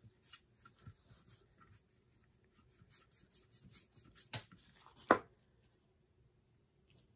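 Foam sponge brush rubbing and dabbing ink on a metal tray in short, light strokes, then two sharp clicks a little under a second apart about halfway through, the second the loudest.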